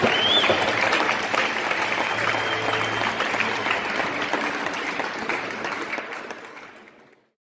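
A group of orchestra musicians applauding and cheering, with a few high whistle-like calls. The applause fades out about six seconds in and is gone a second later.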